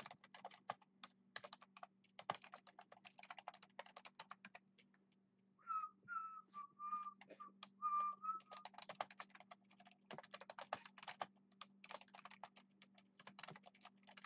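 Typing on a computer keyboard in quick runs of keystrokes. About six seconds in the typing stops for a few seconds while someone whistles a short run of notes, then the typing resumes.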